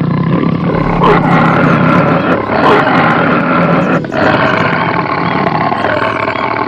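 A loud, rough animal call that keeps going with only a brief dip about four seconds in.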